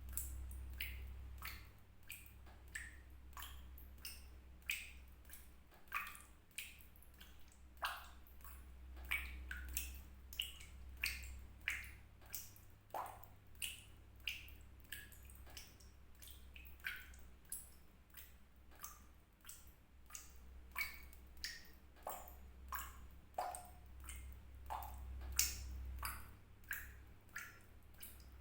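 Water drops falling into water, each a short, sharp plink with a brief ringing pitch, coming irregularly about one to two a second over a steady low hum.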